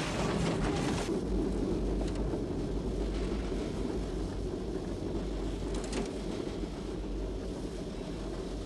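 Runaway diesel locomotive running flat out. A noisy rush of smashed snow and debris fills about the first second, then a steady low rumble carries on, with a brief rattle a little before six seconds in.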